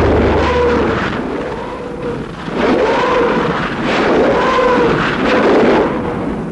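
Katyusha rocket salvo ('Stalin organ'): a series of rising-and-falling howls, about five of them, over a heavy rumbling noise.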